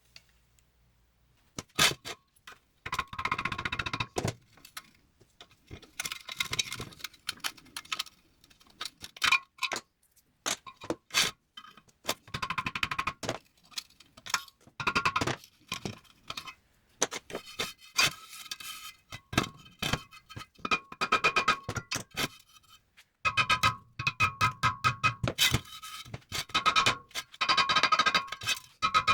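A hammer repeatedly striking the lip of a steel VW wide-five wheel rim to tap out small dings. The struck steel rings after the blows, which come in irregular bursts of quick strikes.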